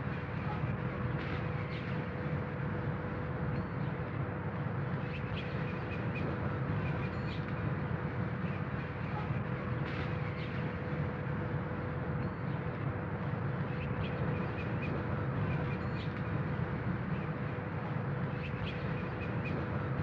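Steady outdoor background ambience: a constant low rumble with a faint steady hum, and scattered short, faint high chirps.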